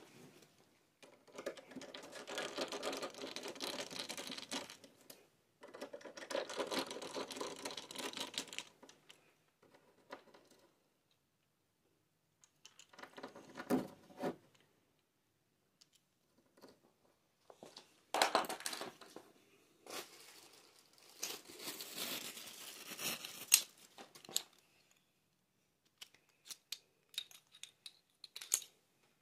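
Doorknob lockset being taken apart and fitted by hand. Two long rustling, scraping stretches come first, then scattered metal clicks and scrapes as a screwdriver turns the mounting screws and the knob parts are handled.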